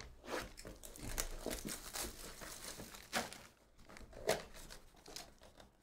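Packaging of a 2023 Topps Chrome Logofractor card box being handled and opened: irregular crinkling and rustling, with a couple of louder scrapes about three and four seconds in.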